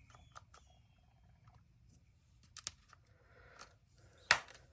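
Quiet handling at a workbench: scattered faint clicks and taps, a short weak hiss a little after three seconds in, and two sharp clicks, the louder one near the end. The sounds come from an aerosol can of PB Blaster penetrating oil being aimed at the seized carburetor screws.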